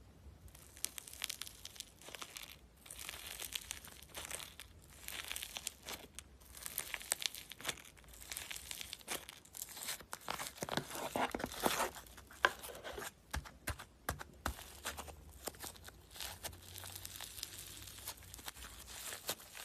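Slime being squished and stretched by hand, making crackly, popping sounds in irregular bursts.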